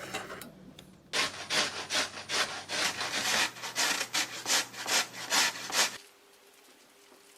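Potato being grated by hand on a grater: a quick run of rhythmic rasping strokes, about three to four a second, that stops abruptly.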